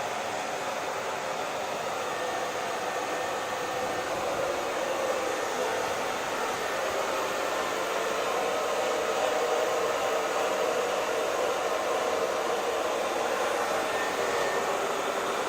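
Hair dryer running steadily, a continuous rushing of blown air that grows slightly louder a few seconds in.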